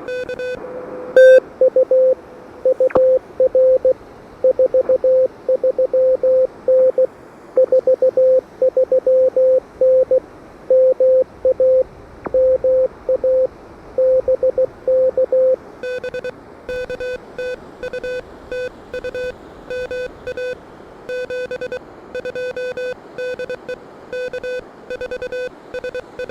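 Morse code (CW) audio from an Elecraft KH1 ham transceiver: keyed tones of dits and dahs over band hiss. From about sixteen seconds in, the keying takes on a buzzier tone with higher overtones.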